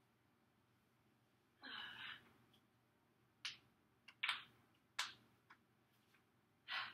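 Quiet room with a short breathy rustle about a second and a half in, then a handful of sharp clicks and knocks, and another short rustle near the end.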